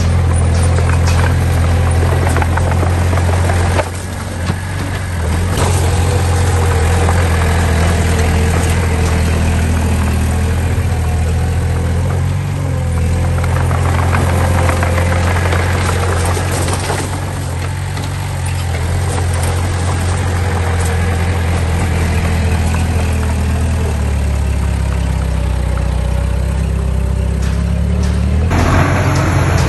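Diesel engine of heavy earthmoving machinery running steadily, with a brief dip about four seconds in and a change in tone near the end.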